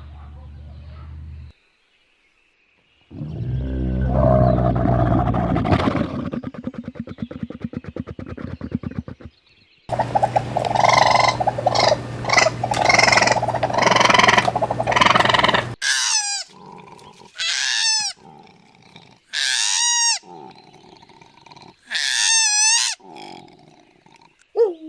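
A run of separate animal recordings: a loud, low, pulsing call, then a harsher call, then about four short pitched calls that rise and fall, each about a second long.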